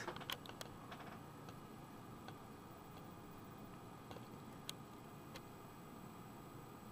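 Faint, scattered light clicks over quiet room noise: a quick run of clicks at the start, then a few single ticks spaced seconds apart.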